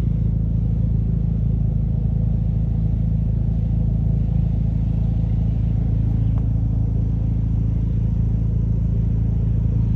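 Ford Ranger Raptor's engine running with a steady low drone at constant speed, with no revving.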